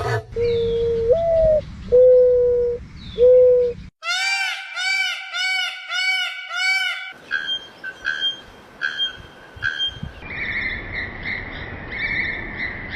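Three different bird calls cut one after another. First, three low, clear hooting whistles, the second rising in pitch. About 4 s in comes a quick series of arched, ringing notes, about two a second. From about 7 s, a run of repeated higher calls follows over a hissing background.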